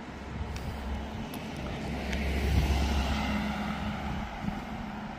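A car driving past on an asphalt street: tyre and engine noise swells to its loudest about halfway through, then fades.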